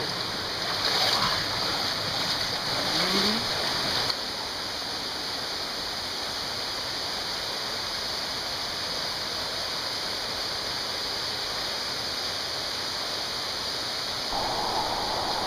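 Rushing water of a mountain stream and small waterfall, a steady even hiss. For the first four seconds it is more uneven with splashing, then it cuts abruptly to a smooth, unchanging rush.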